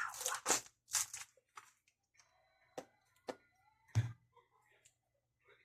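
Handmade paper-and-tape squishies crackling and crunching as they are handled, in a scattered series of sharp cracks, the loudest with a dull thump about four seconds in.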